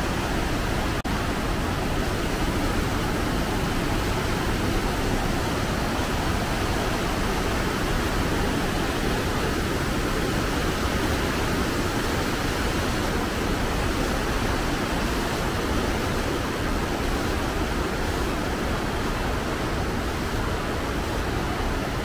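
Steady, unbroken rush of water from the Ryuzu Waterfall cascade on the Yukawa River.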